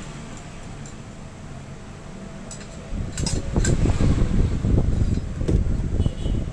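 A few light metal clicks, then from about three seconds in a loud, irregular low rubbing and scraping as a rag on a long metal rod is worked back and forth inside a scooter's front fork tube to clean it.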